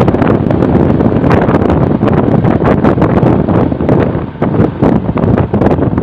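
Heavy wind buffeting the microphone while travelling along a road, with rushing vehicle and road noise underneath; loud and gusty, dipping briefly a little past four seconds in.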